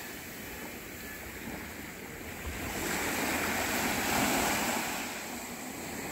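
Small waves breaking and washing up a sandy beach, the rush of water swelling louder about three seconds in and easing off near the end.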